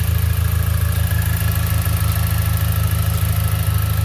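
2012 Buick Regal GS's turbocharged 2.0-litre four-cylinder idling steadily, with a faint steady whine above the rumble. The owner has found no fault codes despite a misfire he thought he felt.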